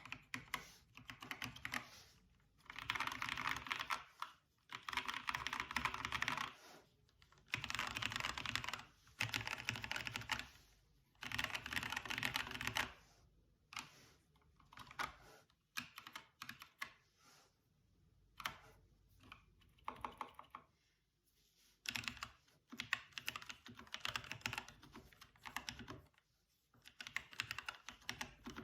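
Custom Machenike K500 mechanical keyboard, with lubed Huano brown switches, PBT keycaps, sound-dampening foam and a tape mod, being typed on. The typing comes in runs of fast keystrokes lasting a second or two, broken by short pauses and slower single presses.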